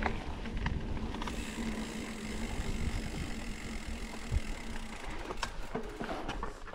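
Mountain bike rolling along a dirt trail: a steady rush of tyre noise with scattered knocks and rattles from the bike over bumps, and a steady low hum through the first few seconds.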